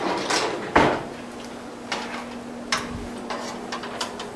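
Cutlery clattering as a spoon is fished out of a kitchen drawer, the loudest clack about a second in, followed by scattered light clicks and knocks of utensils and a plate. A faint steady hum runs underneath from about a second in.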